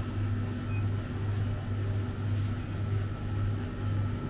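Steady low mechanical hum, wavering slightly, with a faint high whine above it.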